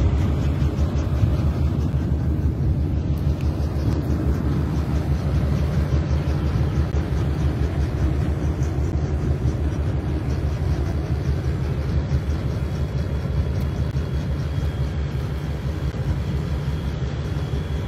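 Tractor towing a chamomile harvester, running steadily: a loud, continuous low rumble.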